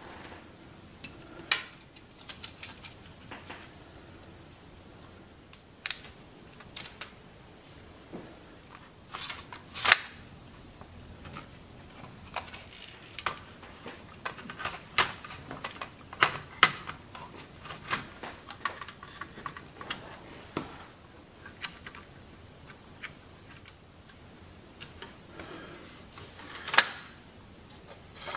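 Irregular clicks and knocks of plastic and metal parts being handled as a Blu-ray player's disc drive is reassembled and fitted back into its metal chassis. The loudest knocks come about ten seconds in and near the end.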